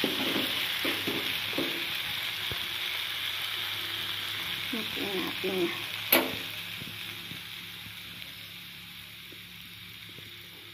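Stir-fried flat rice noodles (kwetiau goreng) with sausage sizzling in a wok, with a few spatula scraping strokes in the first two seconds. The sizzle slowly dies down, and a single sharp click comes about six seconds in.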